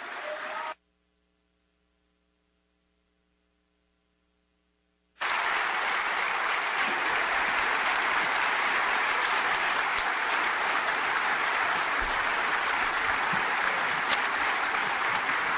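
An audience applauding: a brief stretch of clapping cuts off abruptly, followed by about four seconds of silence, then steady applause from a large crowd starts about five seconds in.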